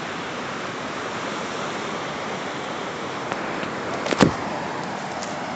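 Steady rush of ocean surf breaking on a rocky shore, with one brief knock about four seconds in.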